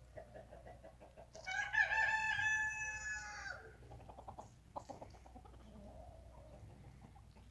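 A rooster crows once, a long crow of about two seconds starting about a second and a half in, dropping in pitch at the end. Softer hen clucking comes before and after it.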